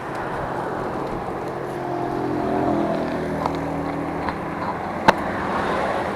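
Motorcycle engine running steadily while riding, under a rushing noise of wind and road. A single sharp click about five seconds in.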